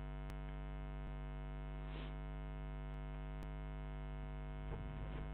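Steady electrical mains hum picked up by the recording microphone, with a buzz of many overtones. A few faint clicks of keyboard typing sound over it.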